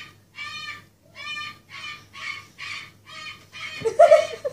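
A bird on a TV calling over and over, a series of short, pitched notes about two a second. Near the end a louder, lower voice-like sound comes in.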